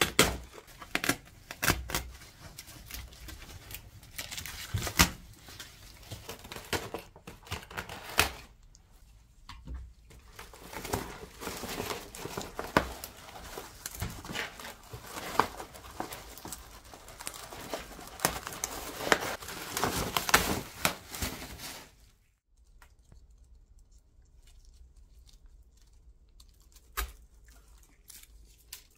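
Old fabric lining being torn and pulled away from a wicker pram body: dense crackling and ripping with many sharp snaps. About three-quarters of the way through it drops suddenly to quiet, with a single click near the end.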